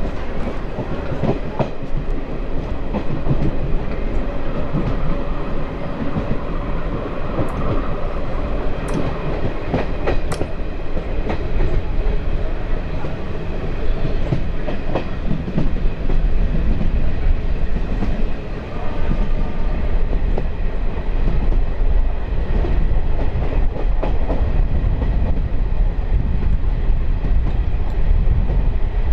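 DEMU train running along the line, heard from on board: a steady rumble of wheels on rail, with a few sharp clicks about a third of the way through.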